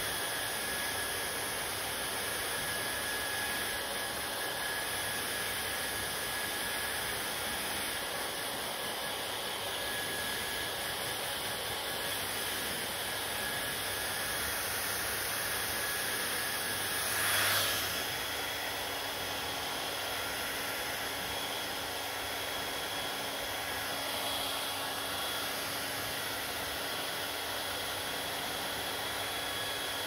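Panasonic hair dryer running steadily close by: a constant rush of blown air with a faint motor whine. About halfway through the sound briefly swells louder for a moment.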